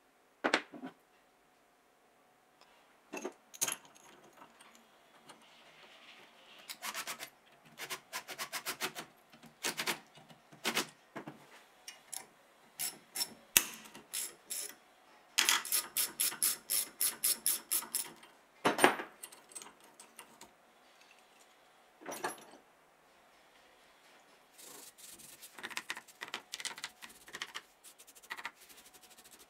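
Ratchet wrench clicking in runs of rapid, evenly spaced clicks as it turns the forcing screw of a two-jaw gear puller. A few single sharp metal knocks fall between the runs.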